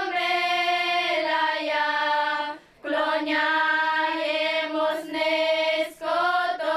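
Girls' choir singing a slow church song, holding long notes, with a short breath pause about two and a half seconds in and another brief break near the end.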